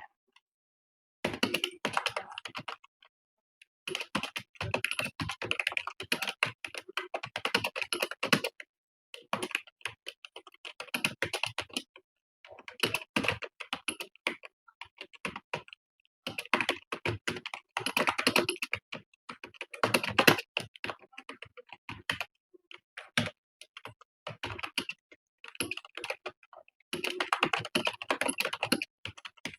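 Fast typing on a computer keyboard: rapid runs of key clicks in bursts of a few seconds, broken by brief pauses.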